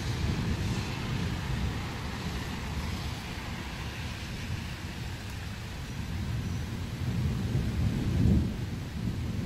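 Thunder rumbling continuously over heavy rain, swelling into a louder peal about eight seconds in.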